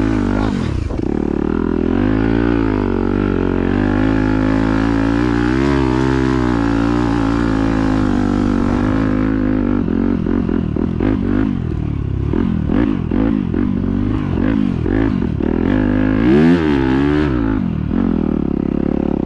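Yamaha YZ250F's four-stroke single-cylinder engine revving up and down as the dirt bike is ridden, its pitch rising and falling over and over, with one sharp rev late on.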